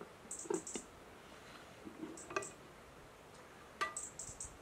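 Dishes being handled and set down: a few light clinks and knocks of plates and metal, the last one ringing briefly.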